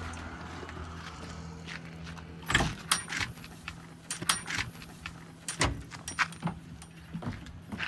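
JCB 3DX backhoe loader's diesel engine running low and steady, with a series of sharp metallic clanks and knocks starting about two and a half seconds in.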